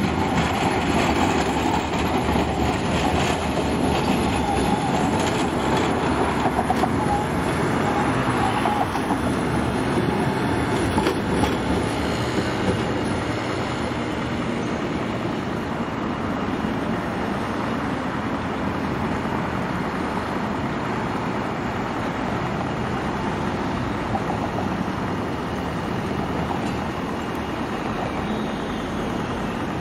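Alstom Citadis low-floor tram rolling over curved track and points, its wheels running on the rails with a thin high squeal and some clicking through the first dozen seconds. After that comes a steadier, somewhat quieter rumble of road traffic and a second tram approaching.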